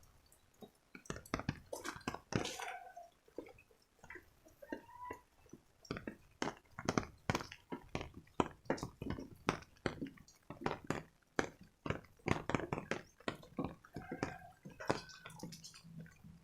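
Rainwater dripping after a heavy downpour: irregular drops and plinks, falling fastest in the middle stretch.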